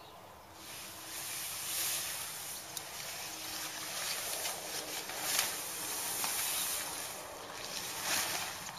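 Rustling and swishing of a tent's PU-coated polyester roof panel as it is dragged off over the tent, with louder swishes about two, five and eight seconds in.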